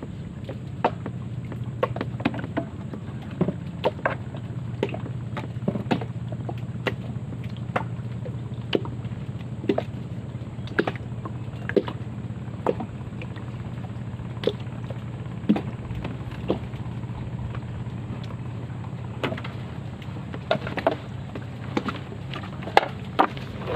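Water lapping against the hull of a small wooden boat: irregular light slaps and taps, one or two a second, over a steady low hum. A few louder knocks near the end.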